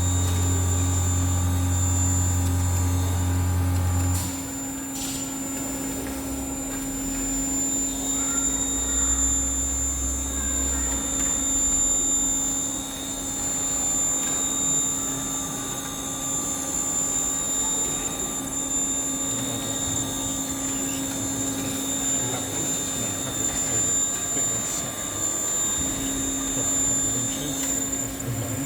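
Machinery running with a steady hum and high-pitched whine; a deep low hum cuts off suddenly about four seconds in.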